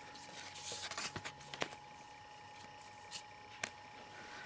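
Faint handling of Yu-Gi-Oh trading cards: a few soft, scattered clicks and light rustles of cards being set down and picked up.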